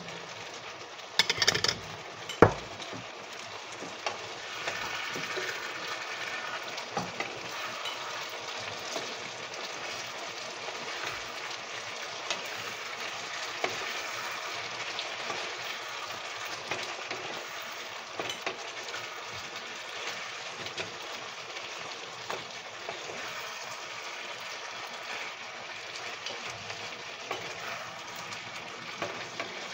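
Broccoli tipped from a metal strainer into a hot pan of beef in sauce, with a clatter and one sharp knock about two seconds in. Then steady sizzling with the light scrape and clicks of a spatula stirring the stir-fry.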